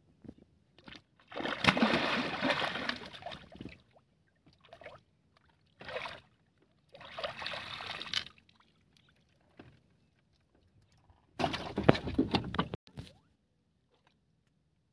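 Water splashing and sloshing beside a small boat in several separate bursts. The longest bursts come about a second in and again near the end.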